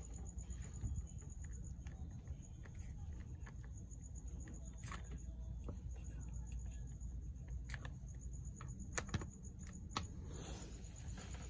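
Scattered faint clicks and taps of hand and tool handling around a motor controller's bolts, a few sharper ones near the end, over a steady low hum and a faint high-pitched steady tone.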